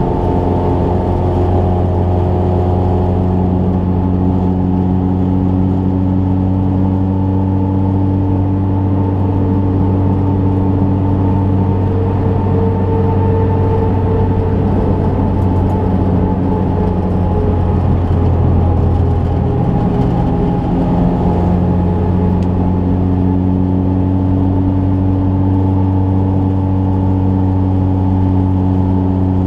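Ford Fiesta rally car's engine heard from inside the stripped, roll-caged cabin, running steadily at cruising speed with road noise underneath. About two-thirds of the way through, the steady engine note breaks for a moment and then settles again.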